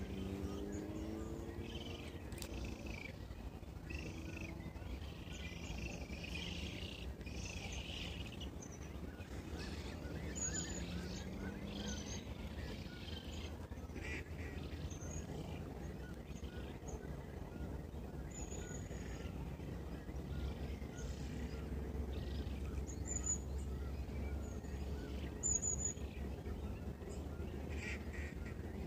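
Outdoor birdsong: birds calling, with several short high chirps scattered through, over a steady low rumble.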